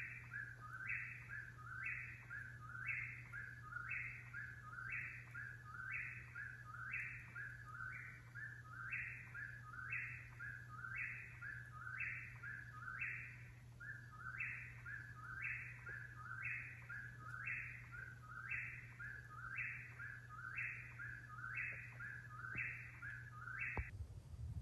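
A bird repeating the same two-part call over and over, about once a second, each call a higher note dropping to a lower one.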